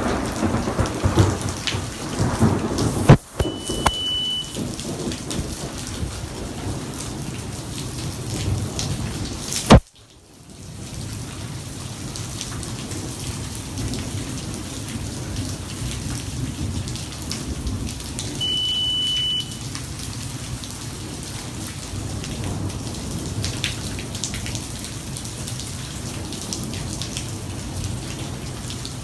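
Thunderstorm with heavy rain falling steadily. Thunder rumbles in the first few seconds, then cracks sharply about three seconds in and again, loudest, about ten seconds in. A short high beep sounds twice, around four and nineteen seconds in.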